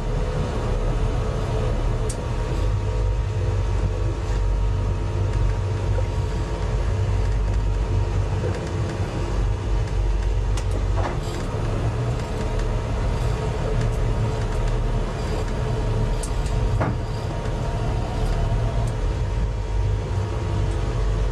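Tiara 27 sport-fishing boat's engine running steadily: a continuous low hum that does not change in pace.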